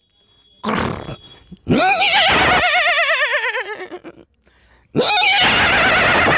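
A man imitating a horse's whinny with his voice. A short breathy burst comes first, then a long wavering neigh that falls in pitch, then a second loud call near the end.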